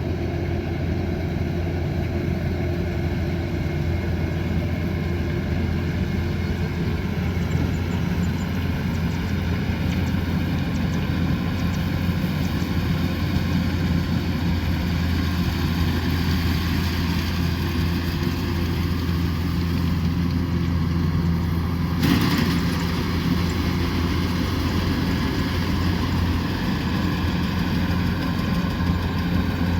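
Kubota combine harvester running steadily, a continuous low machine drone. About two-thirds of the way through there is a single sharp knock.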